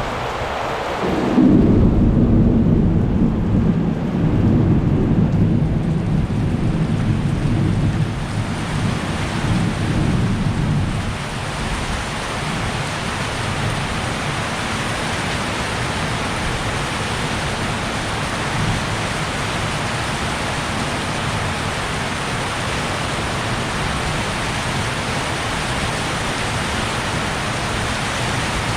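Heavy rain falling steadily. About a second in, a loud clap of thunder breaks into a deep rumble that lasts several seconds and dies away by about eleven seconds, leaving only the rain.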